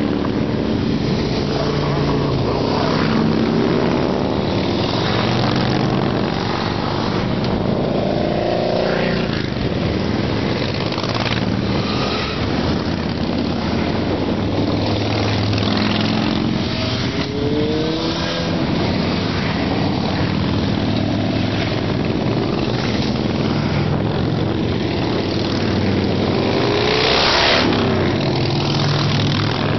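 A long column of motorcycles riding past, their engines running together in a steady loud drone. Several times a single bike passes close and its engine note sweeps in pitch as it goes by.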